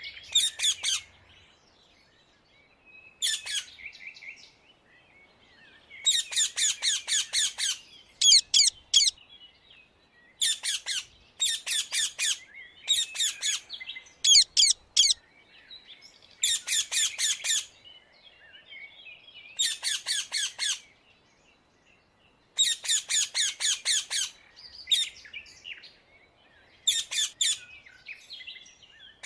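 Rose-ringed (Indian ringneck) parakeet giving harsh, rapid squawking calls in repeated bouts of one to two seconds, with short pauses between them.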